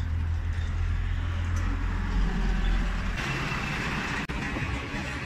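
Road traffic with a heavy truck passing close by: a loud low rumble for about the first three seconds, then a steadier wash of traffic noise.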